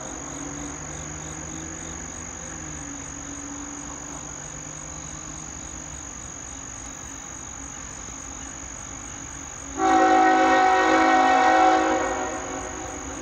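CSX freight locomotive's air horn, sounding a chord of several notes as the train approaches from a distance. The tail of one blast fades at the start. After a stretch of faint low drone, a loud blast of about two seconds begins near the end and then fades.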